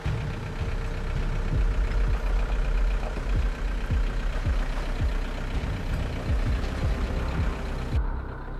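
Off-road vehicle engine running at low speed as it crawls over rough, washed-out ground, with repeated low thumps throughout.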